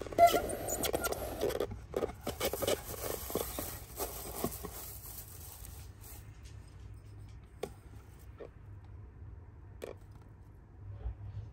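Crinkle-cut paper filler rustling and crackling in a small cardboard drawer as a hand rummages through it and lifts out a bottle. The rustling stops about six seconds in, leaving a few light taps and clicks.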